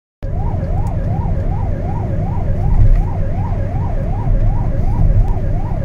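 Emergency vehicle's yelp siren sweeping quickly up and down, about two and a half times a second, heard from inside the cab over a heavy rumble of engine and road noise.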